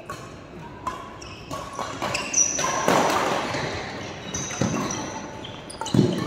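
Badminton play in a sports hall: sharp knocks of rackets striking the shuttlecock and footfalls, with short high squeaks of court shoes on the floor, the loudest thud about six seconds in.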